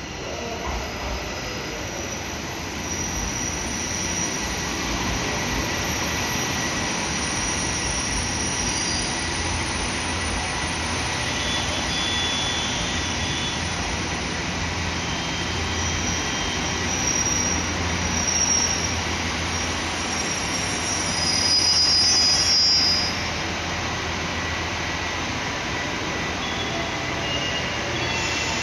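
JR Hokkaido KiHa 283 series diesel express pulling into the platform and braking. Under a steady low engine drone, wheels and brakes squeal in high tones that come and go. The squeal is loudest about three quarters of the way through.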